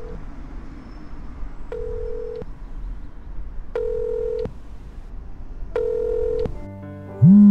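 Telephone ringback tone heard in the caller's earpiece: a steady mid-pitched tone four times, about two seconds apart, showing that the call is ringing unanswered. Near the end a mobile phone starts ringing loudly with a low buzz.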